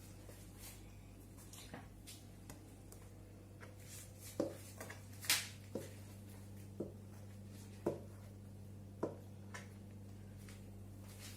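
A spoon knocking against a mixing bowl and baking pan as sponge-cake batter is poured and scraped into the pan: about six sharp taps roughly a second apart, the loudest about five seconds in, over a steady low hum.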